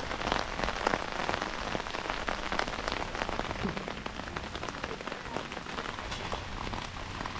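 Steady heavy rain falling, with many individual drops ticking sharply close by over an even wash of rain.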